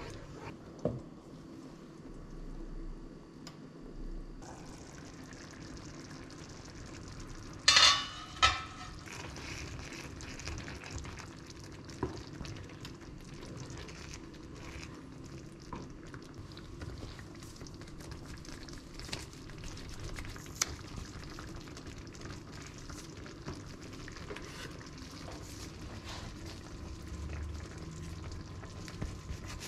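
Beans in tomato sauce simmering and sizzling in a frying pan while a spoon stirs and scrapes through them, with small ticks of the utensil against the pan. Two loud, sharp knocks stand out about eight seconds in.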